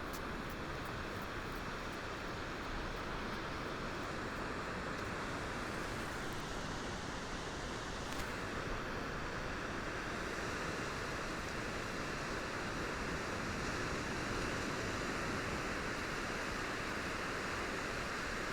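Gentle ocean waves lapping against the shore, a steady surf wash that grows a little louder in the second half.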